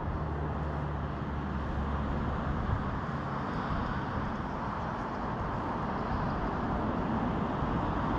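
Steady rush of river water flowing around a wading angler. A low hum underneath fades out about three seconds in.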